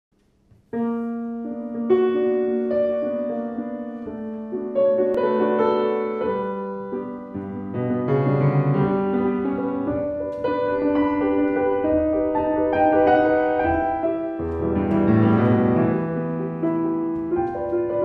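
Solo piano playing a classical piece; the first notes come in about a second in, and it then plays on without a break.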